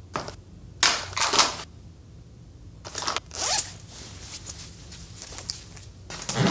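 Clothes rustling in a few short swishes as they are stuffed into a hard-shell suitcase, then softer clicking and rustling as the suitcase is closed.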